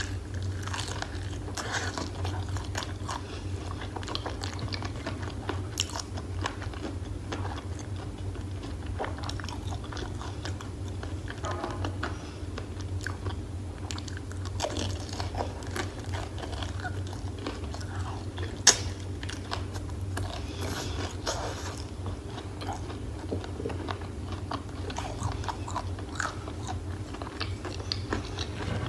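Close-miked biting and chewing of crispy fried chicken: the breading crunches and crackles in many small clicks, with wet mouth sounds, and one sharp loud crack about two-thirds of the way through. A low steady hum runs underneath.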